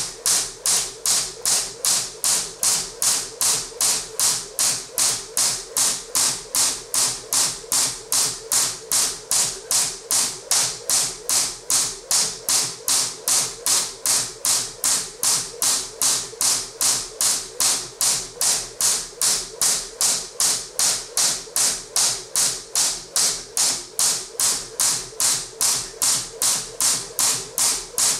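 Crossrope weighted jump rope skipping at a steady pace: the coated steel cable whips round and slaps the floor about two and a half times a second.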